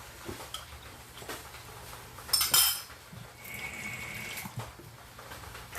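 Kitchen utensils and a bowl being handled, with one loud metallic clink about halfway through.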